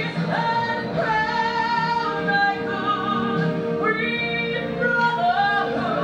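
Music: a woman singing a slow song over sustained accompaniment, holding long, wavering notes.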